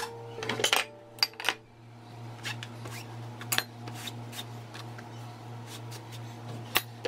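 Light knocks and clinks as a glass bowl and utensils are shifted on a plastic cutting board, and a paper towel rubbed across the board, over a steady low hum.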